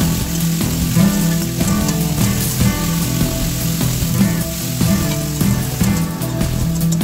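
Shredded cabbage sizzling as it fries in an oiled metal kadai, stirred with a metal spatula, over background music with a repeating melody.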